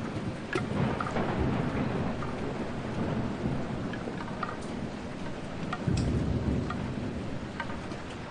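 Steady rain with scattered drops ticking, and low rumbles of thunder rolling through, the strongest one about six seconds in.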